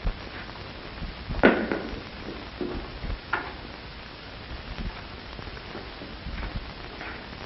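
A wooden bucket knocking on a stone floor as it is handled: a few knocks, the loudest about one and a half seconds in and another near the middle, over steady background hiss.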